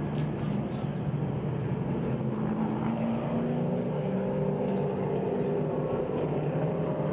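A field of late model stock cars circling together at pace speed, their V8 engines running in a steady drone with several overlapping engine notes.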